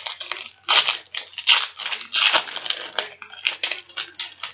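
Baseball trading cards being handled: cards slid and flipped against one another in an irregular run of quick rustling scrapes.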